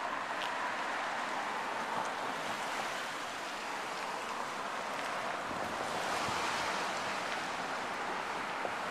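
Steady hiss of road traffic, with tyre noise swelling and easing a little past the middle as a vehicle goes by.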